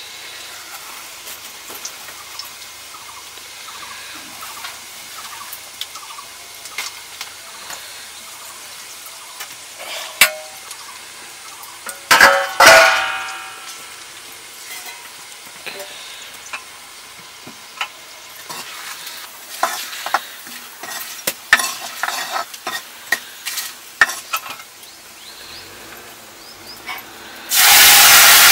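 Food frying quietly in oil in an iron wok, with ladle scrapes and clicks of metal on the pan and one loud, ringing metal clank partway through. Near the end a loud sudden sizzle starts as a wet green mixture is poured from an aluminium pot into the hot oil.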